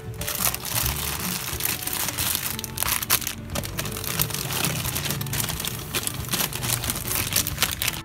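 Plastic food packaging crinkling and rustling as a towel rubs over it, a dense run of crackles throughout, over background music.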